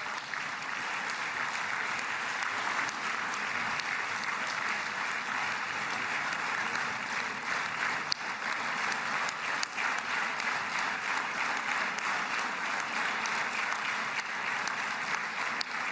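Large audience applauding: steady, dense clapping that holds without a break.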